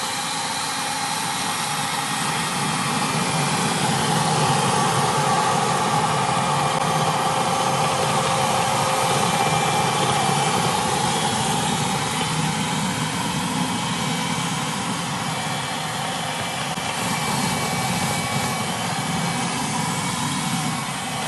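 Philips FC6142 handheld wet-and-dry vacuum cleaner running steadily, sucking up spilled coffee.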